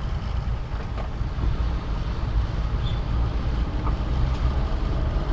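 Steady low rumble of a small manual car's engine and road noise, heard from inside the cabin while driving.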